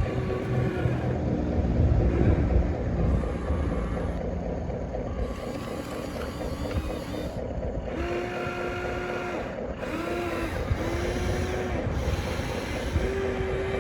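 Small electric motors and gearboxes of radio-controlled toy construction machines whirring steadily. A higher, steady whine comes and goes in several stretches of about a second each in the second half.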